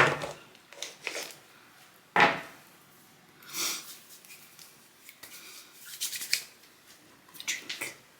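A few short clicks, rustles and clatters of small objects being picked up and set down, with a sharper knock about two seconds in.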